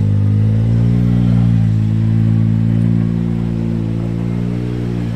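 Can-Am Maverick X3 side-by-side's three-cylinder engine running steadily at low speed as the vehicle rolls in slowly.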